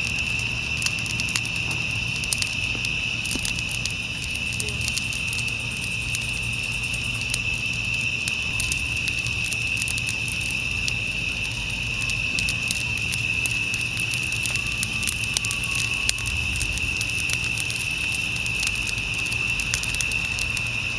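Evening insect chorus: a steady, high-pitched continuous trill, with scattered faint ticks over a low background rumble.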